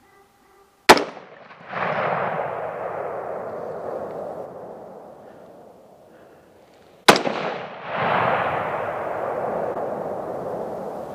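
Two rifle shots from a 6.5 Creedmoor AR-10-pattern rifle firing 124-grain Hammer Hunter bullets, about six seconds apart, at two hogs. Each sharp crack is followed after a short gap by a long rumble that fades over several seconds.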